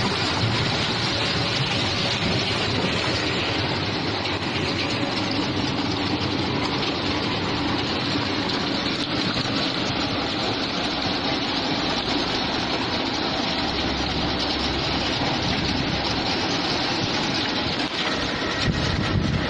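Potato chip processing line running: mesh conveyors, the washer and their electric drive motors make a steady, even mechanical noise.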